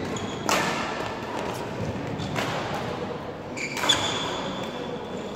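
Badminton rally: shuttlecock struck by rackets about three times, roughly every one and a half to two seconds, with shoe squeaks on the court floor, echoing in a large sports hall.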